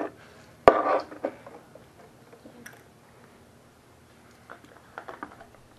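Plastic containers handled on a tabletop: a sharp knock about a second in, then scattered light clicks and taps.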